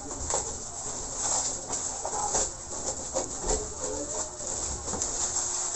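Plastic packaging and bubble wrap crinkling and rustling in irregular crackles as a boxed ring light is unwrapped.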